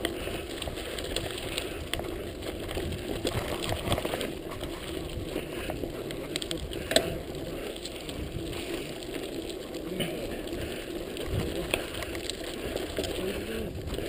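Mountain bike rolling over a loose gravel and dirt track: steady tyre noise on the stones, with frequent small clicks and knocks from the bike and one sharper knock about halfway through.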